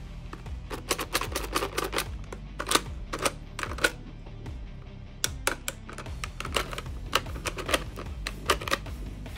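Sharp plastic clicks and clacks from a toy QBZ soft-bullet rifle, coming in irregular clusters, over background music.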